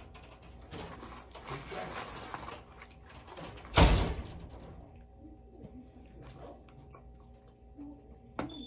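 Close-up eating sounds of chicken wings being chewed and handled in crinkly paper wrappers, with one loud thump about four seconds in.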